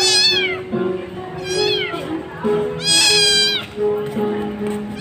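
Kitten meowing three times in high, falling calls. The third, about three seconds in, is the longest and loudest.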